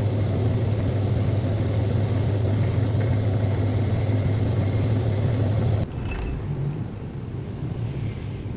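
Lathe running with a steady low hum. About six seconds in it cuts abruptly to a quieter hum.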